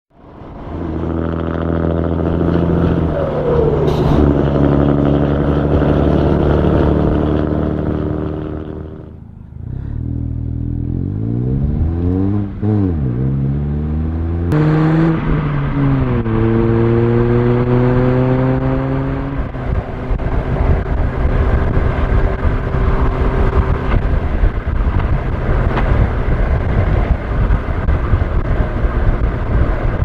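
A road vehicle's engine pulling up through the gears, its pitch climbing and then dropping back at each shift. After about twenty seconds it gives way to steady road and wind noise at cruising speed.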